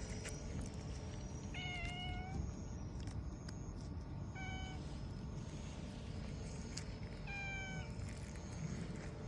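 A black-and-white tuxedo cat meowing three times, the middle meow short, over a steady low background noise.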